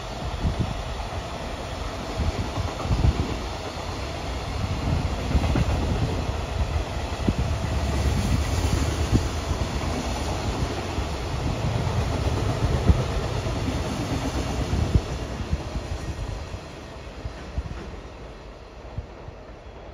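Long freight train of container flat wagons rolling past at speed: a steady low rumble with wheels clattering and knocking over the rail joints, fading near the end as the last wagons pull away.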